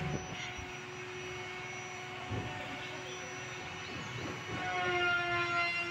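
A steady droning hum with a clear pitch, swelling louder about two-thirds of the way through, with a few faint knocks.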